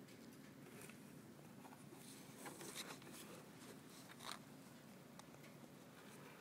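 Near silence with faint, scratchy rustling from a Russian Blue cat moving in a cardboard box close to the microphone, with a few sharper scratches about two and a half and four seconds in.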